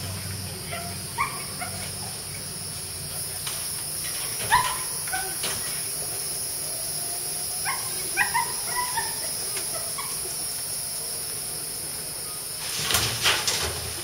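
A dog barking in short bursts, three groups of barks, over a steady high insect drone; near the end a brief rushing, hissing noise.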